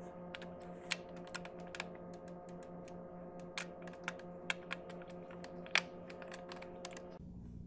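Light, irregular clicks and taps of a VW 2.5L five-cylinder engine's vacuum pump housing knocking against the cylinder head as it is worked by hand into place and its drive is keyed in.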